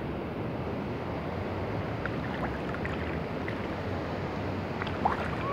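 Steady rush of water pouring over a river spillway, with a brief high chirp near the end.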